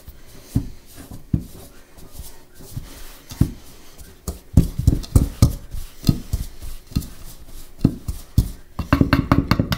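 A metal utensil knocking and scraping against a large mixing bowl as a flour dough is worked by hand. The strokes come as irregular dull knocks, then quicken into a fast run of strokes near the end.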